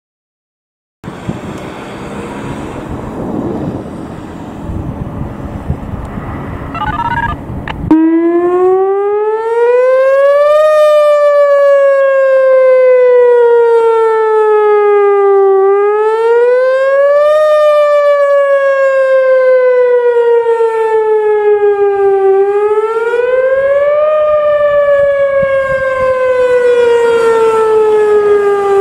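Whelen Vortex R4 rotating electronic warning siren, sounding a test. It starts about eight seconds in with a wail that rises and falls slowly, one cycle every six to seven seconds. Before it starts there is only rumbling background noise.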